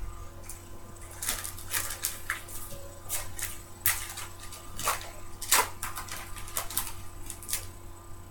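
Trading cards and their pack being handled: a series of irregular sharp rustles and clicks, some louder than others, over a faint steady hum.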